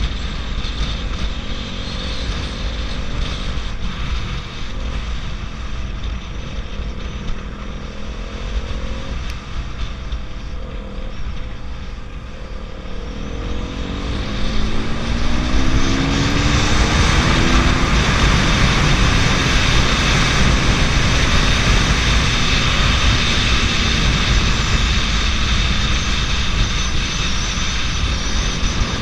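KTM RC 200's single-cylinder engine running under way. The engine note climbs in pitch about halfway through as it accelerates, then runs louder and steadier with a broad rushing noise for the rest of the stretch.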